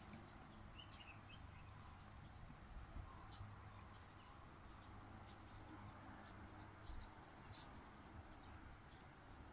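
Near silence: faint outdoor background with scattered faint, short high-pitched ticks and chirps.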